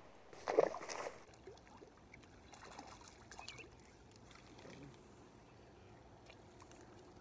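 Quiet outdoor ambience with a short loud burst of noise about half a second in, then a few faint bird chirps and small scattered ticks.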